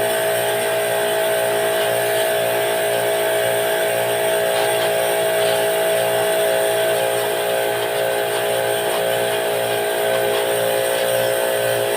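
A motor running steadily with a constant whine, unchanging in pitch and level.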